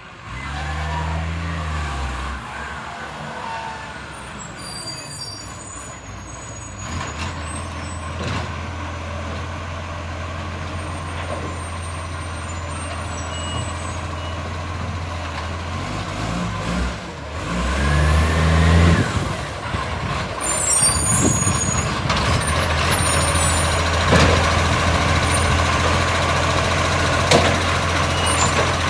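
Garbage truck's diesel engine running with an exhaust leak, blasting. The engine revs up briefly about a second in and again just past the middle, then runs louder.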